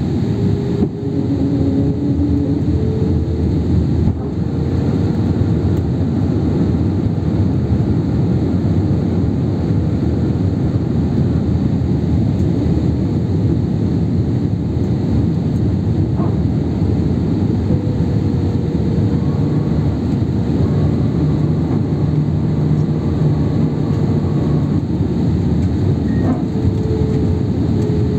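Steady cabin noise of a jet airliner in flight: engine and rushing-air noise heard from inside the passenger cabin, with a faint hum that holds a steady pitch.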